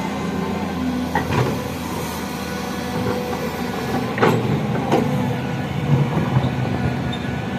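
Excavator engine running steadily, with a few sharp metallic clanks: one about a second in and two more about four to five seconds in.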